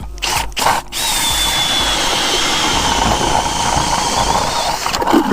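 Power ice auger reopening an old, refrozen hole in the lake ice. It gives a couple of short bursts, then runs steadily for about four seconds with a whine that drops a little in pitch as it bores, and stops near the end.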